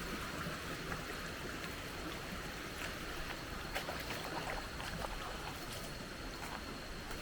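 River water flowing over rocks, a steady rushing hiss with scattered light clicks and splashes. A faint steady high tone runs underneath.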